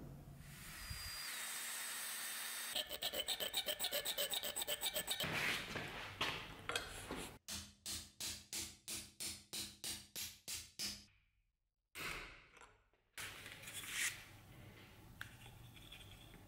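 Hand file scraping on steel in repeated back-and-forth strokes, fast at first, then a run at about three strokes a second. It opens with a short steady rushing noise and cuts off and restarts abruptly several times.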